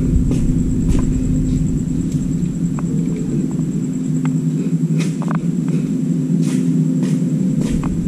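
A steady low machine hum with a constant faint high whine above it, broken by scattered light clicks and knocks.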